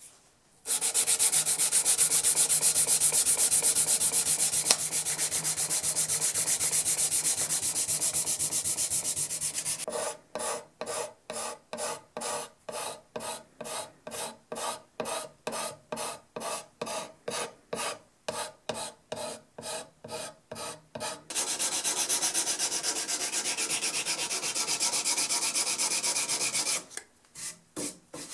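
Steel scraper and hand rubbing on an old apple wood saw handle. It opens with fast, continuous rubbing on the wood. From about ten seconds in to about twenty-one seconds come separate scraper strokes, about two a second, then fast rubbing resumes, with a few short strokes at the end.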